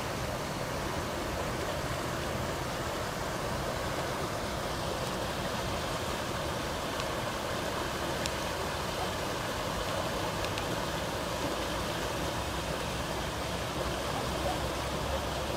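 Steady rush of a muddy river in flood, the wadi running again after heavy rain.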